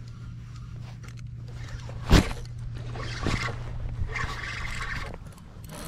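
Close handling noise as a hand works fishing tackle right by the camera: one sharp knock about two seconds in, then softer rustling and swishing, over a low steady hum.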